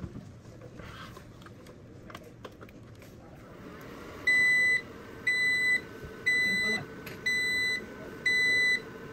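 Vertiv Liebert UPS beeping as it starts up: its alarm buzzer gives a high beep of about half a second once a second, five times, starting about four seconds in. Before that, a few faint clicks of handling the unit.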